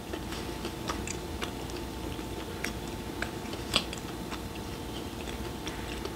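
Close-up mouth sounds of chewing grilled beef intestines (gopchang): small wet clicks and squelches, with one sharper click a little under four seconds in, over a faint steady hum.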